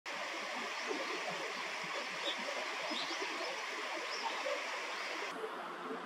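Steady rush of flowing water, with a few faint high chirps over it; about five seconds in it cuts abruptly to a quieter background hiss.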